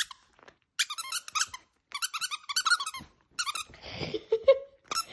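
Small round plastic dog-toy squeaker squeezed rapidly by hand, giving three quick runs of high squeaks, then a short breathy growl from a West Highland white terrier in the last second or so.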